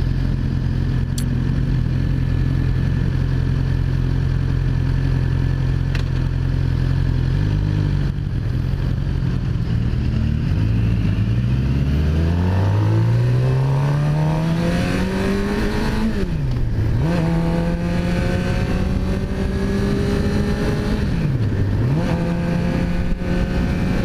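Suzuki GSX-R600 inline-four engine idling at a standstill, then pulling away and accelerating. Its pitch climbs, drops twice with upshifts and climbs again.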